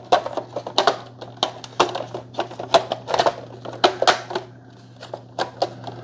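Hard plastic housing panels of a Keurig K-Cafe coffee maker clicking and knocking as they are pushed and slid back onto the machine by hand: irregular sharp clicks, a couple a second, with a quieter stretch about five seconds in.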